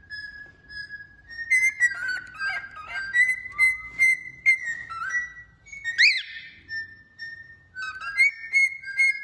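Male cockatiel singing: a string of whistled notes and warbles, some held and some gliding down in pitch, with a sharp upswept whistle about six seconds in.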